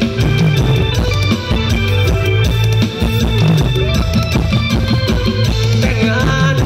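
A live mor lam sing band plays an instrumental passage through a loud outdoor PA system: drum kit on a steady driving beat, heavy bass and electric guitar. A higher melody line comes forward near the end.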